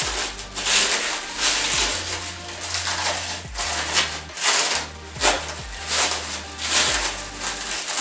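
Plastic wrapping rustling and crinkling in a series of irregular bursts as a long packed item is unwrapped by hand.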